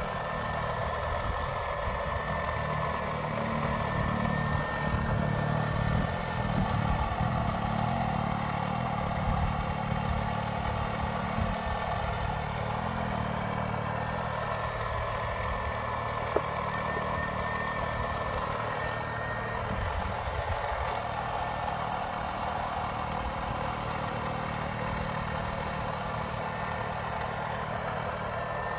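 Radio-controlled model excavator working in the dirt: a steady engine-like drone under a thin whine that comes and goes as its motors move the arm. There is one sharp click about halfway through.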